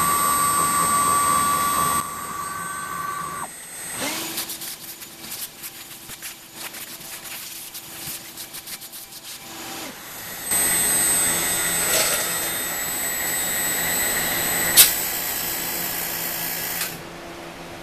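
CNC router spindle running while milling an aluminum plate, in stages: a steady high whine that stops about 3.5 s in, then a quieter stretch of rapid clicking over a low hum, then a louder steady run from about 10.5 s with one sharp click near 15 s, cutting off shortly before the end.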